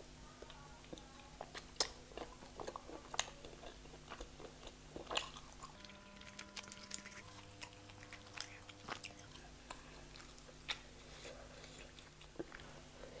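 Close-up biting and chewing of chicken tikka, with wet mouth smacks and sharp clicks scattered throughout.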